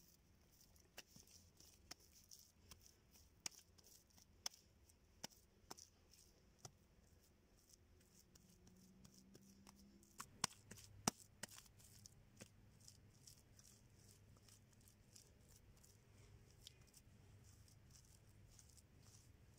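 Faint, scattered light taps and clicks of handwork. They come about once a second at first, with a few louder clicks around ten to eleven seconds in.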